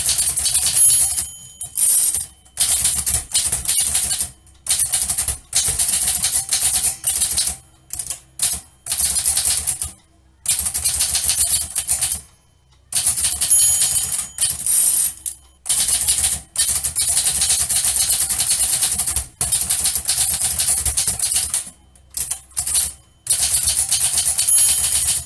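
Manual typewriter typing in fast runs of key strikes lasting a second or two, broken by short pauses. A brief high ringing tone, the carriage's margin bell, sounds three times: about a second in, about halfway, and near the end.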